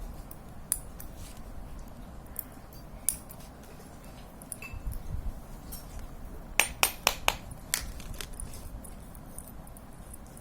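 Light metallic clicks and clinks of small bicycle freewheel parts and steel bearing balls being handled. A quick run of about five sharp clicks comes about two-thirds of the way through.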